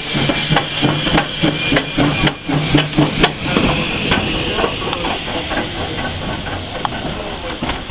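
Small steam saddle-tank locomotive moving slowly past, with a run of clanking knocks about three a second over a steady hiss of steam; the knocks thin out in the second half.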